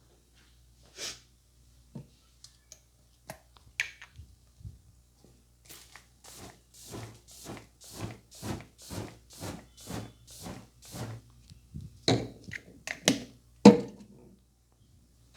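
Barber's hands working on a head during a head massage: a few scattered taps, then an even run of about a dozen strokes at roughly two a second, ending in a few louder thumps.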